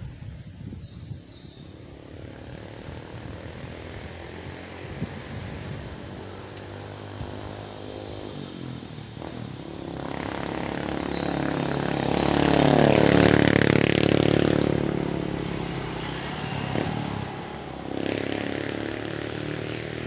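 A motorcycle engine comes up from behind and passes close by, getting loud about twelve to fourteen seconds in, its pitch dropping as it goes past, then fading away.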